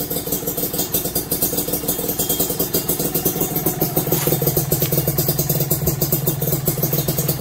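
Kawasaki KRR two-stroke motorcycle engine idling steadily on its own, with no choke, after its carburettor was set up with a larger pilot jet: the small-pilot-jet stalling problem is cured.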